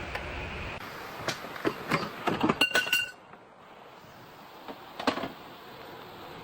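Hand tools clinking and knocking on metal: a quick run of sharp clinks, one ringing briefly, then a second short cluster of clinks a couple of seconds later. A steady background noise cuts off abruptly about three seconds in.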